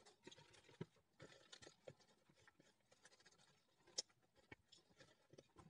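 Faint wet squelching and rustling of rubber-gloved hands rubbing chili paste into napa cabbage leaves in a plastic bowl, in irregular small clicks and scrapes, with one sharp click about four seconds in.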